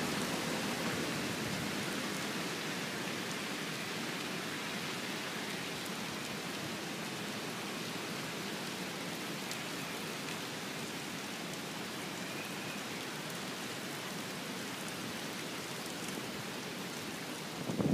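Steady hiss of wind-driven storm rain, a little louder in the first couple of seconds and then even.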